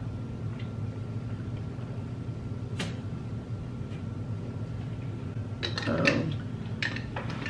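Small plastic drink bottle handled and its cap twisted on near the end, giving a few light clicks over a steady low hum.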